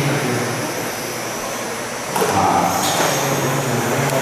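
Several electric 1/10-scale RC touring cars (Vintage Trans-Am class) running laps on a carpet track: a steady mix of high electric-motor whine and tyre noise, echoing in a large hall. It gets louder about two seconds in, with a couple of short knocks.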